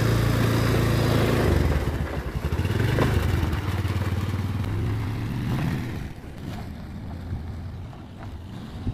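Engine of an automatic ATV quad bike running as it pulls away with two riders aboard. The engine sound is loud at first, then fades from about six seconds in as the quad moves off down the street.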